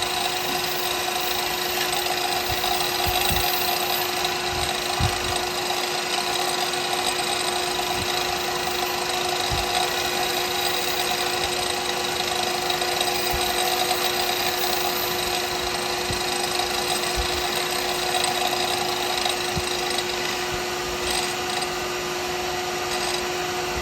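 Wood lathe running steadily with a constant hum, spinning a cast pen blank, with a few faint knocks.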